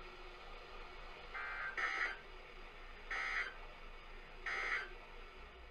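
Three short bursts of Emergency Alert System SAME data tones, a warbling electronic chirp, about a second and a half apart: the end-of-message signal that closes the warning broadcast.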